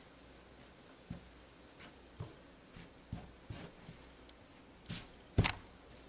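Faint rustling and light taps of knit fabric being spread, folded and smoothed flat on a cutting table by hand, with one sharper knock about five seconds in.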